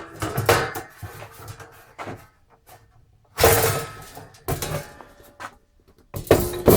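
Lid of a 1U rackmount equipment enclosure being opened and handled: rustling and scraping, then a few loud knocks and scrapes, the loudest about three and a half seconds in and near the end.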